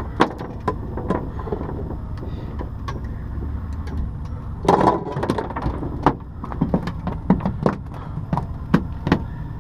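Clicks, knocks and plastic rattles of hands handling a caught flounder with a plastic bucket and a plastic measuring strip, with a louder rustle about halfway through. A steady low rumble runs underneath.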